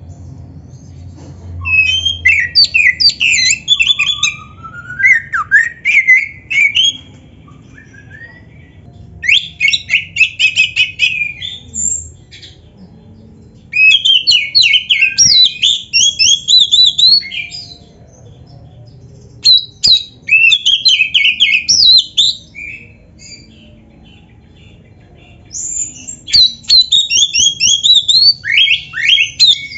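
Oriental magpie-robin (kacer) singing in five loud bursts of rapid, varied whistles and harsh chattering notes, with pauses of a second or more between phrases.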